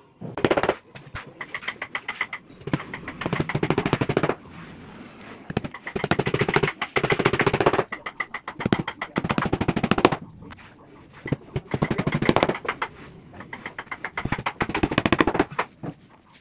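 Small hammer tapping small nails into particle-board strips on a particle-board panel. It strikes in quick runs of many light blows, each run lasting one to two seconds, with short pauses between.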